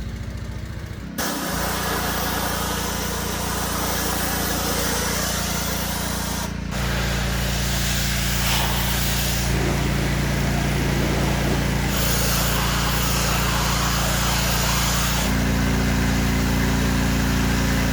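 Pressure washer running steadily, its engine hum under the hiss of the water jet on the siding. The engine note and spray hiss shift abruptly a few times.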